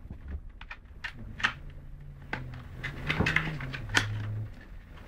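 Irregular clicks and taps of plastic and small hardware being handled, as memory modules are taken out and readied for fitting.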